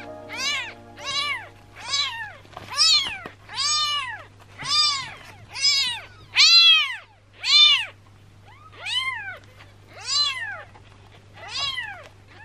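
Three-day-old ginger kitten meowing over and over: about a dozen high, shrill cries in quick succession, each rising and then falling in pitch.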